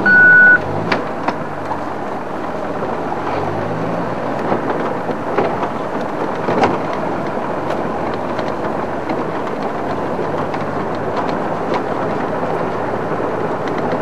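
Safari game-drive vehicle driving off-road: the engine runs and rises in pitch twice as it pulls away and picks up speed, with scattered knocks and rattles from the rough track. A short, loud steady beep sounds right at the start.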